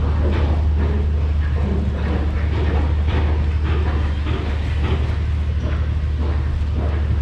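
Steady low machinery hum with irregular knocks and clatter over it.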